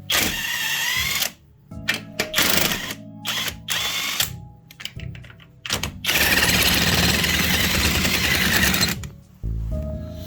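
Handheld power tool run in several short bursts, the first with a rising motor whine, then one longer run of about three seconds. Light disco background music plays under it.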